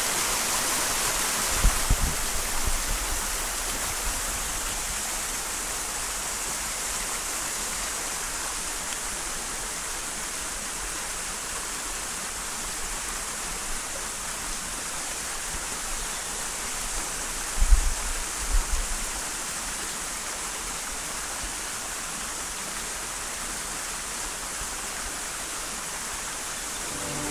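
Shallow stream running over rocks and stones: a steady, even rush of water. Two short clusters of low bumps break in, about two seconds in and again around eighteen seconds in.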